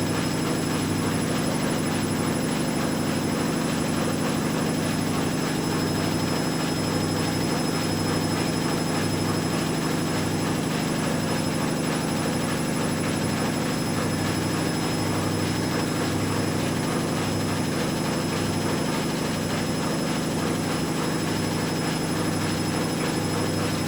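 Two front-loading washing machines, a Hoover Dynamic Next and a Whirlpool Aqua Line AWM1850, running their spin cycles at the same time: a steady motor and drum hum with a low throb about once a second.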